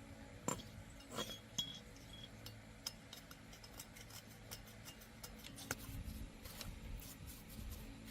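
Light metallic clinks and clicks at irregular intervals, with a brief ringing note about a second in, over a faint steady low hum.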